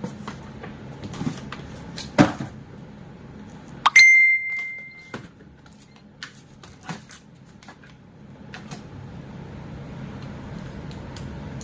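Scattered clicks and knocks of objects being handled, with a loud knock about two seconds in. About four seconds in there is a sharp click followed by a steady high beep that lasts just over a second.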